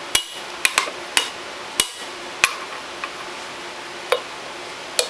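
Small hammer tapping a steel socket set in the end of the shaft inside a Honda Foreman 500 rear differential case, driving the ring gear out. About eight sharp metal-on-metal taps at uneven intervals, each with a short ring.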